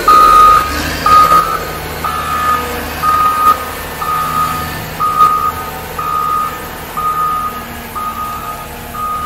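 Motor grader's reversing alarm beeping steadily about once a second, one high tone each time, over the low running of its diesel engine as it reverses. The beeps grow a little fainter toward the end.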